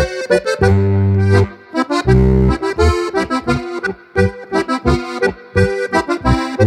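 Steirische Harmonika, a Styrian diatonic button accordion in G-C-F-B tuning, playing a lively Boarischer: short chopped chords under the melody, with deep bass notes held about a second in and again about two seconds in.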